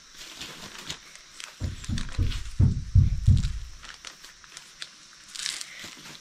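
Hands working loose soil into a plastic nursery bag: crackling and rustling of crumbly soil and plastic, with a run of low, dull thuds in the middle.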